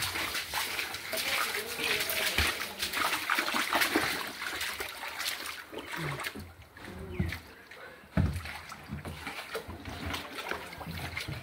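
Feet wading through shallow muddy floodwater, splashing with each step, most busily in the first half, with brief voices in the background around the middle.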